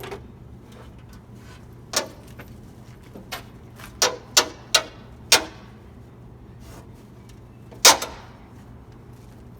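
Hand tools and metal hood hardware on an old Chevy pickup clanking and clinking: about seven sharp metallic knocks with a short ring, a quick run of four in the middle and the loudest near the end.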